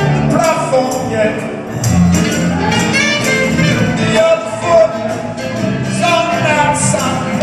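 Live rock band playing with electric bass, drums and congas, and an alto saxophone.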